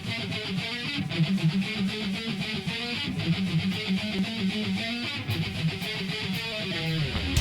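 Background music led by an electric guitar playing a fast run of picked notes. A heavier, fuller band sound comes in right at the end.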